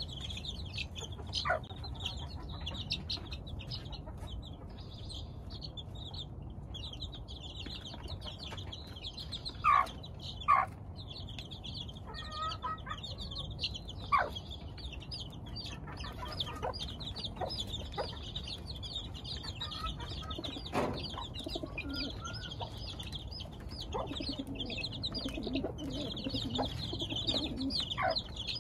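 A flock of two-week-old chicks peeping constantly and all together, with a hen clucking now and then; her two loudest calls come about a second apart near the middle.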